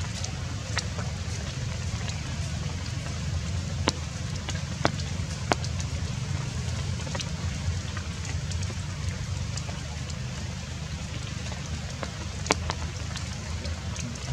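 Rain dripping through the forest canopy: scattered single drops ticking sharply at irregular moments over a steady low rumble.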